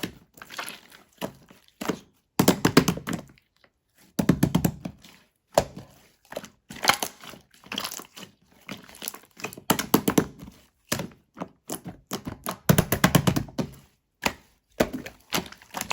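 Slime being pressed and squished by hand, giving bursts of rapid crackling pops and clicks, about a second each, with short pauses between.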